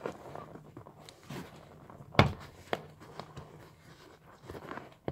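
Hands working at a car's rear bench seat cushion: soft rustling and handling noises, with one sharp knock about two seconds in and a smaller click just after.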